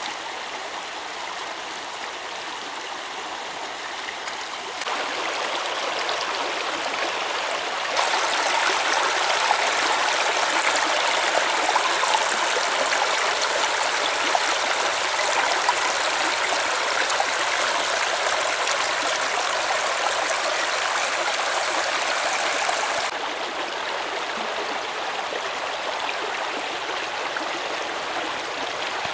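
Shallow stream running over stones: a steady rush of water, stepping louder about five and eight seconds in and easing a little near the end.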